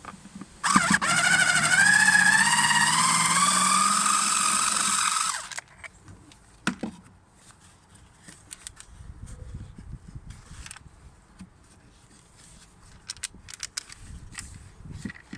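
Handheld power tool motor running at speed for about five seconds, its pitch wavering and creeping up under load, then stopping abruptly. Scattered light clicks and knocks of parts being handled follow.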